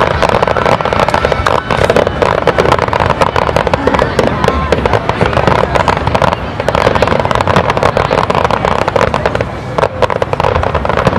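Aerial fireworks display: a continuous barrage of dense, rapid crackling from crackle-effect star shells, with louder bangs mixed in.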